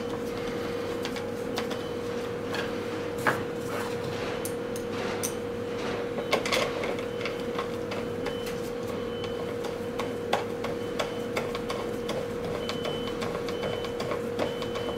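Bottom screws being driven by hand into the recoil starter housing of a 68cc petrol multi-tool: irregular small clicks and taps of the hand tool and screws, over a steady hum.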